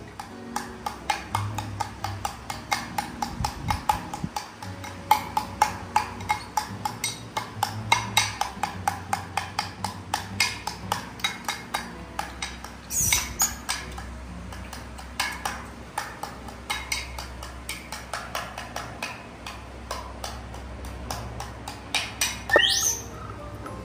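Rapid, irregular clicking and tapping, with a baby monkey giving two short high squeals that rise sharply in pitch, one about halfway through and one near the end.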